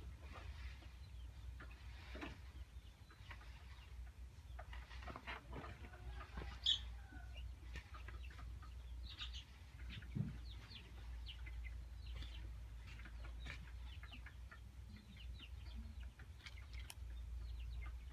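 Chickens clucking faintly in short scattered calls over a steady low hum. A brief sharp high-pitched sound about seven seconds in is the loudest.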